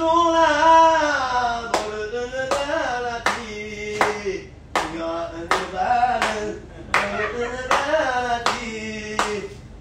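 A voice singing a melody with long held notes, over steady hand clapping about once every three-quarters of a second that starts nearly two seconds in.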